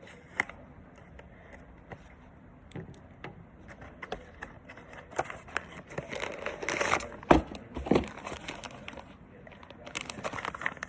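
Blind-box packaging being handled: crinkling and rustling with scattered light clicks, busiest and loudest about six to eight seconds in, with a couple of sharper knocks.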